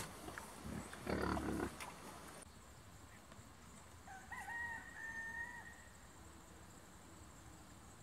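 A rooster crowing once, about four seconds in: a single drawn-out call of under two seconds that steps up in pitch at its start, over a faint steady high insect buzz. Earlier, about a second in, there is a short, louder burst of noise.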